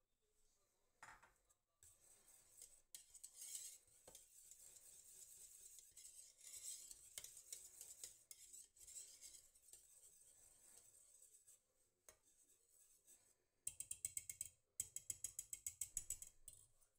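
Wire whisk stirring a thick melted cheese mixture in a stainless steel pot, soft and scraping at first. Near the end it speeds up, the wires clicking against the pot about six or seven times a second.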